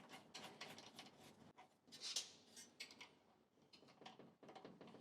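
Near silence with faint scattered clicks and taps of handling, and a brief soft hiss about two seconds in.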